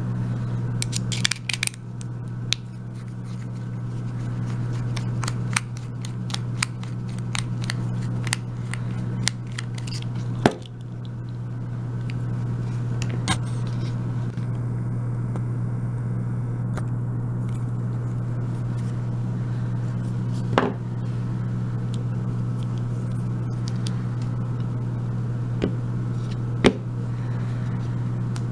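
Small metal clicks and clinks from an Abus 34/55 padlock being taken apart by hand, its brass core pulled from the steel body: a busy run of clicks in the first ten seconds, then a few single clicks. A steady low hum runs underneath.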